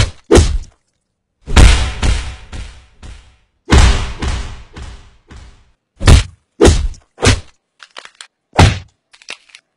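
Heavy slap and punch hits on a person's body, played back slowed down: about eight separate impacts at uneven intervals, two of them with long drawn-out tails.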